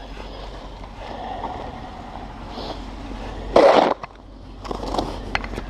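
Snow shovel scraping over snow and pavement, with one loud, short scrape about three and a half seconds in and a few sharp knocks near the end.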